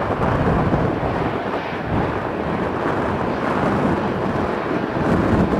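Jet airliner engine noise, a steady rushing rumble with wind buffeting the microphone.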